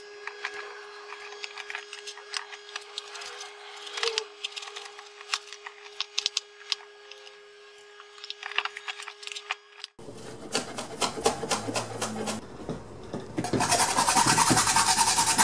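Food preparation: cabbage being handled and cut with a kitchen knife on a wooden cutting board, soft rustles and small knocks over a steady hum. After about ten seconds comes a quick run of sharp chopping strokes, then a loud hiss near the end.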